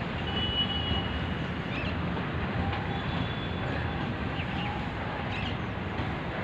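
Train running on the rails: a steady rumble, with a faint thin high tone twice.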